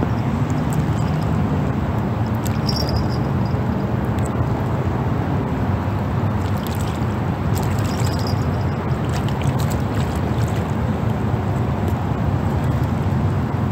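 Steady low outdoor rumble with a few faint clicks scattered through it.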